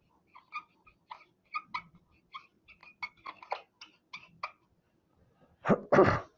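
Dry-erase marker writing on a whiteboard: a series of short squeaky scratching strokes as the words "output impedance" are written out. Near the end come two loud, short noises.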